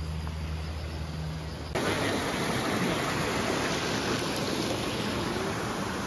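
Waterfall and rocky stream rushing: a steady, even rush of falling water that cuts in abruptly about two seconds in. Before it, a quieter outdoor background with a low steady hum.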